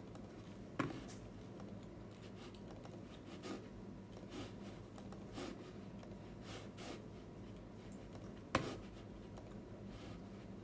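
Quiet room with a steady low hum, soft scattered taps and rustles, and two sharper knocks, one about a second in and one near the end.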